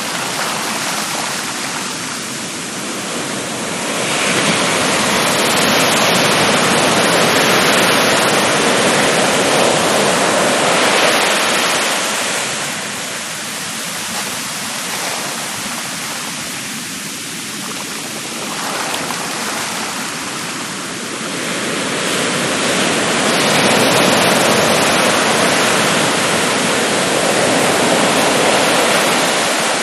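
Ocean waves breaking and washing up onto a sandy beach: a continuous rushing surf that swells loud twice, as one wave breaks in the first third and another near the end, easing in between.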